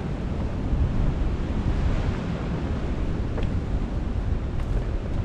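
Wind buffeting the microphone over the wash of sea swell breaking on rocks, a steady heavy rumble, with a faint click about three and a half seconds in.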